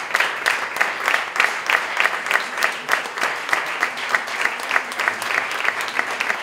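A small audience and the people on stage applauding: many hand claps overlapping, held steady throughout.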